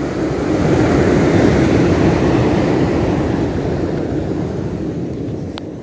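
Low rushing noise of wind on the microphone mixed with surf on the beach, swelling about a second in and easing toward the end. A couple of faint clicks near the end.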